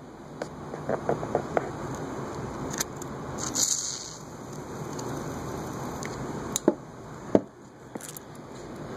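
Evergo Emperor ceiling fan motor being turned by hand on its stiff bearings as WD-40 is worked in: a steady running noise with scattered clicks and knocks from handling, and a short hiss a few seconds in.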